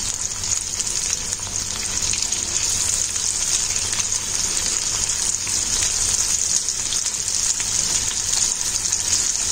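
Several sesame-coated falafel balls deep-frying in hot oil in a kadhai: a steady, even sizzle.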